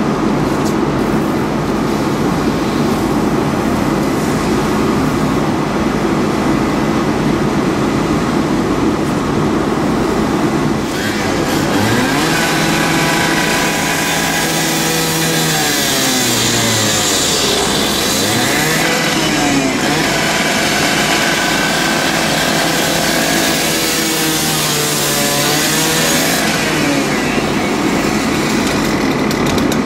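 A steady, loud engine and traffic rumble. About a third of the way in, an engine's pitch slides down, bottoms out in the middle, then climbs back up before fading into the rumble again.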